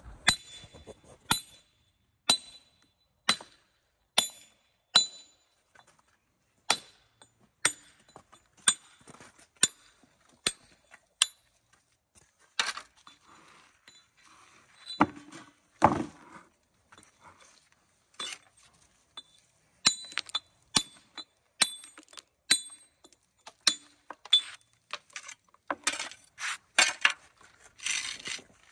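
Hammer blows on sandstone coping stones, sharp ringing clinks about one a second, as the stone is dressed into shape. About halfway through a heavy stone thuds down, and near the end there are scraping and rubbing sounds on the stone.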